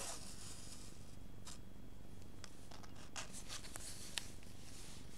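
Fabric ribbon being pulled through holes in a paper book page with a large needle. A faint rustle of ribbon against paper at first, then several short scratchy strokes.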